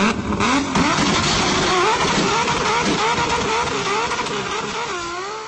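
A cat's loud, drawn-out angry yowl-growl, its pitch wavering up and down over a harsh hiss, cut off abruptly near the end.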